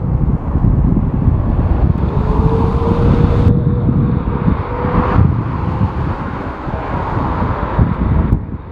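Strong wind buffeting the microphone, with a jet airliner's engine running beneath it and a steady whine heard for a few seconds from about two seconds in.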